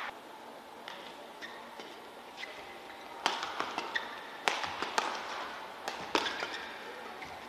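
Badminton racket strikes on a shuttlecock in a rally. About six sharp hits come at irregular spacing, roughly one every half second to a second, starting about three seconds in, over quiet arena ambience.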